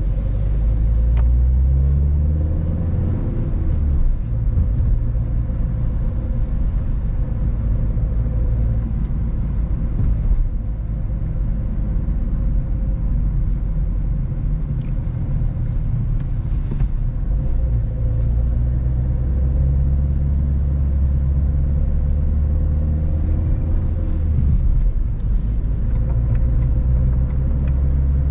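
A car engine and its road rumble while driving. The engine rises in pitch over the first few seconds as the car accelerates, holds steady while cruising, then rises again near the end.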